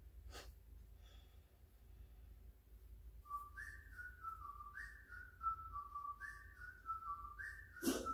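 A whistled tune: a short phrase that jumps up and steps back down, repeated about four times, starting about three seconds in. There is a faint click near the start and a sharper click just before the end.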